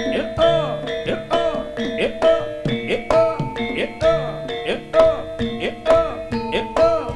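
Javanese jaranan gamelan music: quick hand-drum (kendang) strokes with bending pitches over steady ringing gong-chime tones, in a fast, even rhythm.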